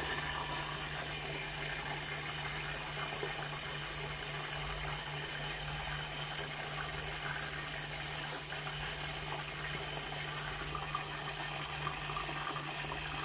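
Fish frying in hot oil in a pan, a steady sizzle with a low hum underneath. One short click about eight seconds in.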